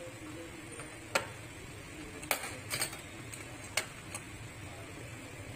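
Several short, sharp clicks and taps as a replacement processor is fitted into a desktop motherboard's CPU socket by hand.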